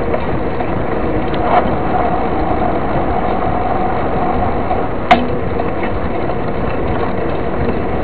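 Steady rush of wind and tyre noise from a mountain bike riding along asphalt, with one sharp click about five seconds in.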